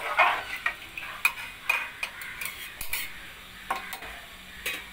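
A ladle stirring rice, lentils and water in an aluminium pressure cooker, scraping and clinking against the pot at irregular moments.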